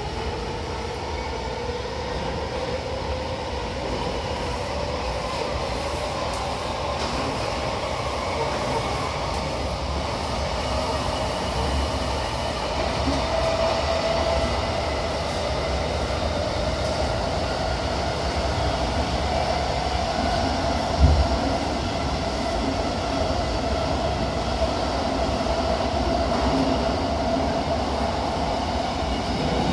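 Running noise of an electric commuter train heard from inside the car in a subway tunnel. The wheels rumble steadily on the rails under the traction-motor whine, which rises in pitch through the first half as the train gathers speed and then holds level. There is a single knock about two-thirds of the way through.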